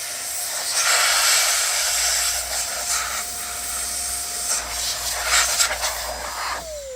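Dust-blowing tool clearing dust from inside a computer: a steady whine under surging hiss of air. Near the end the whine drops in pitch and fades as it winds down.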